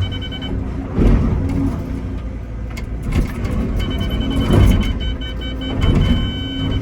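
Excavator working its bucket against solid shelf rock: a low engine and hydraulic rumble with heavy knocks and scrapes of steel on rock about every second or two, and a high steady whine that stops about half a second in and comes back in the second half.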